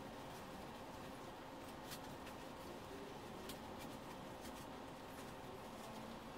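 Faint rustling and scattered light clicks of a cloth costume being handled and adjusted, over quiet room tone with a faint steady hum.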